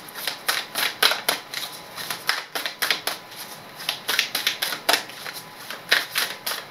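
A deck of cards being shuffled by hand: a quick, irregular run of crisp card clicks and slaps, several a second.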